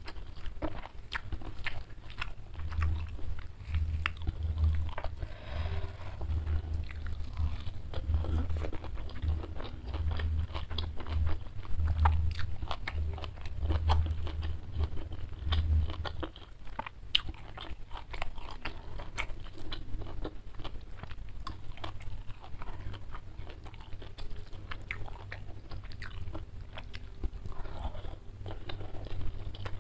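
Close-miked chewing and crunching of food eaten by hand, including raw leafy greens, with many small wet mouth clicks. A low, regular thudding runs under the chewing through the first half.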